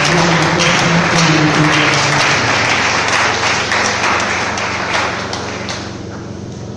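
A congregation applauding, a dense patter of many hands clapping that dies away about six seconds in.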